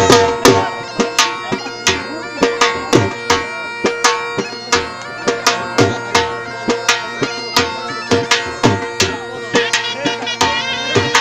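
Live dhol drumming in a steady, driving jhumar rhythm, several strokes a second, with a wind instrument holding long notes over it.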